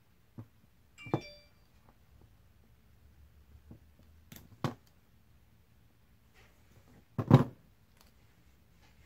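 Small handling noises as a plastic light housing and hand tools are worked on and moved about on a cardboard box: a few scattered clicks and knocks, a brief ringing clink about a second in, and the loudest, a dull thump, about seven seconds in.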